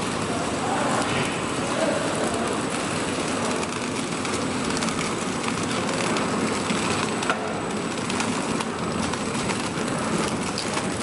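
350D horizontal flow-wrapping machine running: a steady, dense mechanical clatter with many small rapid clicks.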